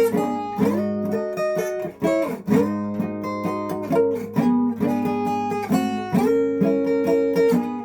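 Acoustic guitar strummed in a steady rhythm, chords ringing between strokes with no singing.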